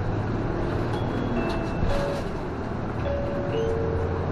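City bus driving, its engine and road noise heard from inside the cabin at the front, steady throughout, with a few brief held tones over it.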